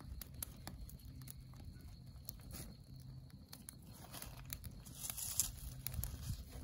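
Small wood campfire of dry grass, twigs and dead cedar branches crackling with scattered sharp pops, with some rustling as dry sticks are handled.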